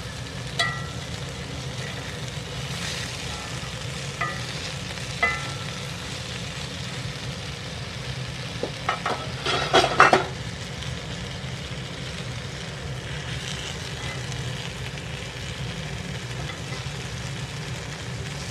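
Eggplant slices sizzling steadily in hot mustard oil in an iron pan, frying uncovered to crisp the second side. A few sharp clinks of a spatula against the pan come in the first five seconds, and a louder clatter of knocks about nine to ten seconds in.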